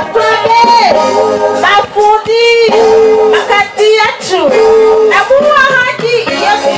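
Live music over a PA: a woman singing into a microphone, holding long notes and sliding in pitch between them.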